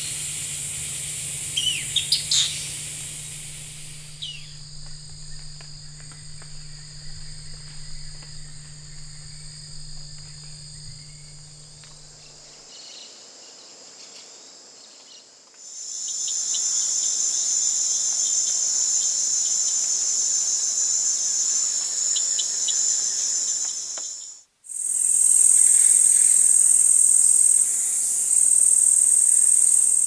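Insects droning in high, steady chorus, changing in pitch and loudness at several cuts, with a very high, loud drone over the last five seconds. A bird calls a few quick chirps about two seconds in.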